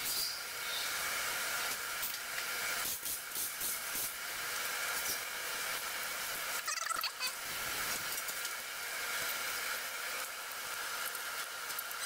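Steady hiss with a few faint clicks, and a short cluster of clicks and clatter about seven seconds in.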